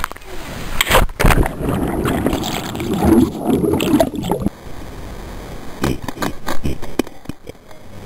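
Splash of a jumper and camera plunging into lake water about a second in, then muffled churning and gurgling with the microphone underwater among bubbles, which changes abruptly to quieter water sloshing with small knocks once it breaks the surface.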